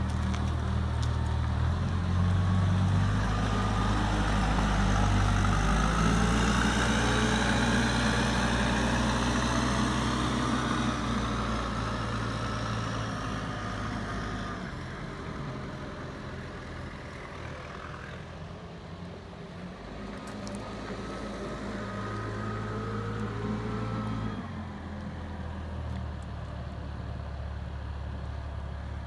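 Caterpillar TH460B telehandler's diesel engine running as the machine drives away over gravel, its pitch rising and falling with the throttle. It is loudest in the first dozen seconds and grows fainter as it moves off, with a swell in revs around twenty seconds in.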